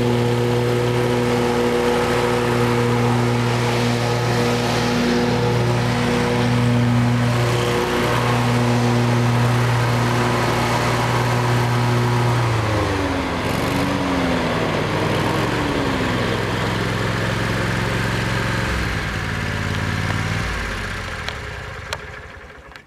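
The 20 horsepower Kohler Command engine of a 2005 Exmark Turf Tracer zero-turn mower running at a steady high speed. About halfway through it is throttled back: the pitch falls, wavers up and down twice, then holds lower before the engine sound fades away near the end.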